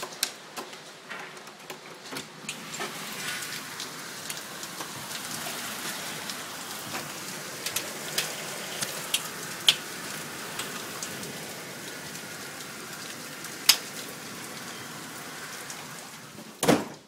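Heavy rain pouring steadily, with scattered sharp clicks through it and a loud short thump near the end.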